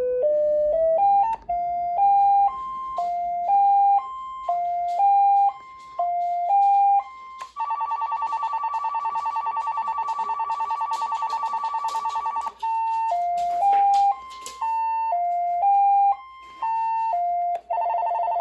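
Cordless phone handset playing a beeping electronic melody ringtone, one note at a time. About seven seconds in, the melody gives way to a rapid warbling trill for about five seconds, then resumes, with another short trill near the end.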